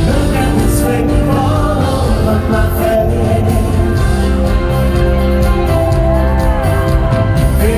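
Live band playing a song with a lead singer, heard loud from the audience at a concert.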